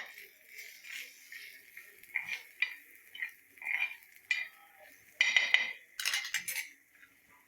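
A cooking utensil scraping and knocking against cookware in a series of short, irregular strokes, busiest about five to six and a half seconds in.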